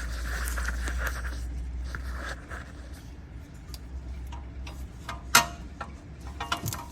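Metal clinks of brake pads and caliper hardware being handled and worked loose, with one sharp ringing clink about five seconds in and a quick run of smaller clicks near the end.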